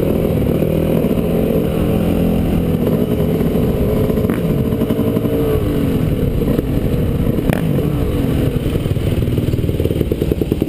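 Dirt bike engines running at low speed, their pitch rising and falling with the throttle.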